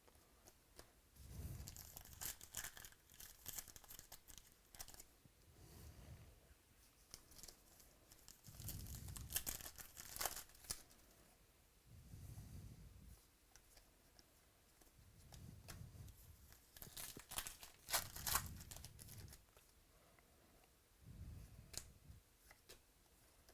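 Faint tearing and crinkling of trading-card pack wrappers being ripped open, in about three bursts of crackle, with soft low bumps of handling in between.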